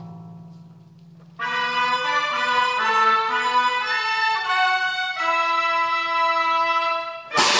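Chinese traditional orchestra: a percussion stroke dies away, then about a second and a half in the winds and strings enter with a melodic phrase of stepping notes, settling into longer held notes. Near the end a sudden loud percussion crash cuts in.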